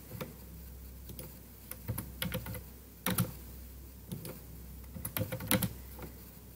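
Typing on a computer keyboard: a few short bursts of keystrokes with pauses between them.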